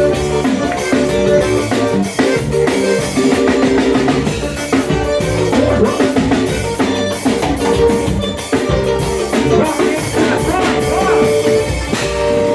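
A forró band playing an instrumental passage at full volume: a drum kit keeps a steady beat under sustained melody lines.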